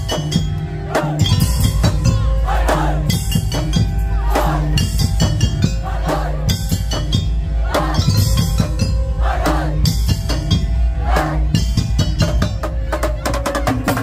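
Madurese musik daul (tong-tong) ensemble playing live: a dense run of rapid drum and percussion strikes under held melodic notes.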